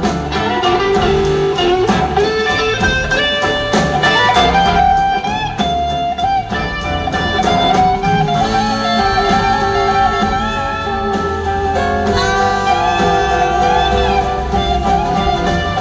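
Live blues-rock band playing: an electric guitar solos with gliding, sliding notes over the band's drums and guitars.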